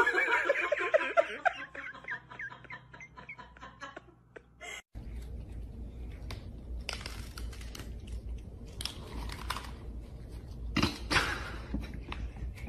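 A high-pitched voice in quick, repeated pulses over the first few seconds. Then cats crunching dry kibble from a bowl: scattered crackly chewing clicks, with louder crunching bursts around seven, nine and eleven seconds in.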